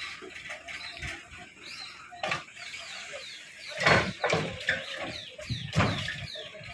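Gravelly soil and stones sliding and tumbling out of a tipping tractor trailer onto a pile, with several heavy thuds, the loudest about four and six seconds in.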